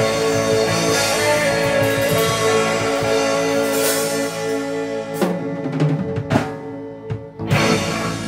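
Rock band with electric guitars, bass and drum kit playing the end of a song: a held, ringing chord, then several hard drum-and-cymbal hits over the last three seconds as the music rings out.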